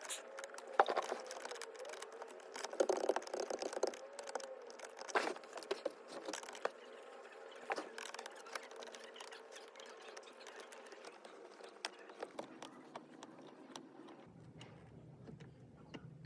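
Irregular small clicks, taps and scrapes of a flathead screwdriver working in the release holes behind a steering wheel, prying at the airbag's retaining pins. The clicks are busiest in the first half.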